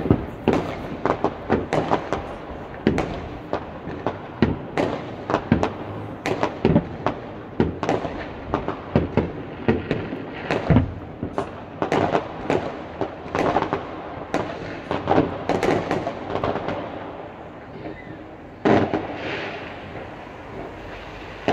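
New Year's Eve fireworks going off all across a town: a dense, irregular stream of overlapping bangs and pops, some near and some distant. There is a brief lull a few seconds before the end, then a louder bang followed by a couple of seconds of hissing.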